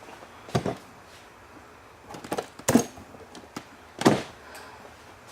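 Cutters snipping a cable tie inside a desktop PC case, amid a handful of sharp clicks and knocks from handling tools and cables; the loudest come a little under three seconds in and at about four seconds.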